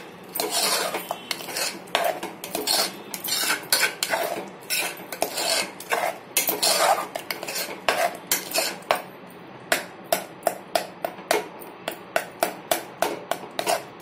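Ladle stirring thick mashed dal in a metal pressure cooker pot, scraping and knocking against the pot's sides and bottom in a steady run of strokes, about two to three a second, quickening near the end.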